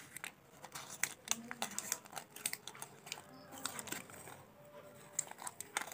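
Candy wrapper crinkling and rustling as hands shift it and the small jelly candies lying on it, a string of irregular light crackles and ticks.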